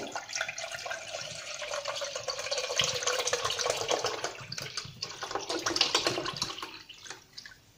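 Milk pouring from a 1-litre carton into a saucepan: a steady splashing pour as the pan fills, tapering off and stopping about seven seconds in.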